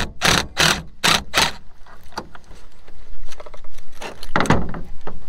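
Red cordless drill driving a screw on the metal fitting of a lay-flat irrigation hose in five short bursts about a third of a second apart. Near the end, clattering and a knock as the drill is set down on the truck's plastic bed liner.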